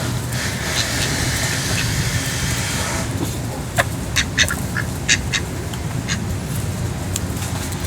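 Domestic ducks quacking: a quick run of short quacks in the middle, over a steady low rumble.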